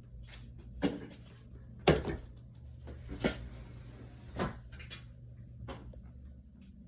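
A series of sharp knocks and clatters, about five over several seconds with fainter clicks between them, the second one the loudest, over a steady low hum.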